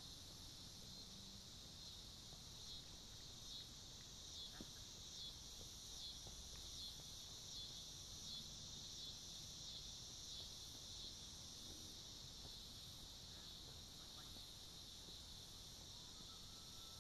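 Faint, steady, high-pitched chorus of insects chirring in the field.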